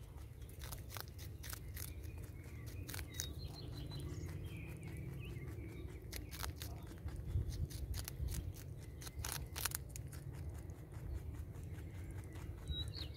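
Rabbit chewing a crisp green vegetable, a quick irregular run of small crunches as it bites and grinds. Birds chirp faintly in the background.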